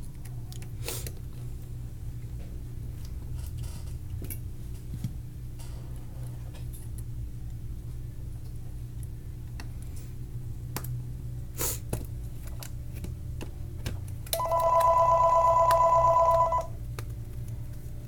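A steady low hum with scattered small clicks, then a telephone rings once for about two seconds near the end, an electronic trilling ring.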